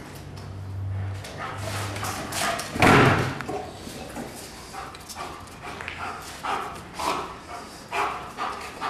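A German shepherd barking, with the loudest bark about three seconds in and shorter barks coming about twice a second near the end.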